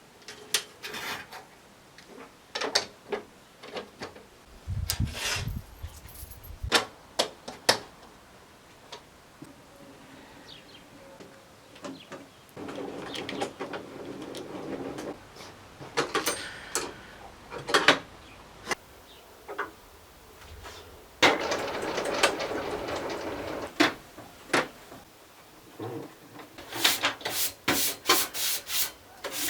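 Wooden runner strips being rubbed down by hand to fit the table saw's miter grooves: stretches of rubbing strokes, with scattered knocks of wood being handled between them and a fast run of short strokes near the end.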